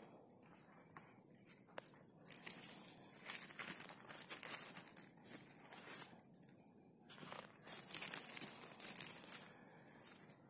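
Dry conifer needles and forest-floor litter rustling and crackling as a hand clears them away from around a porcino mushroom, with scattered sharp clicks.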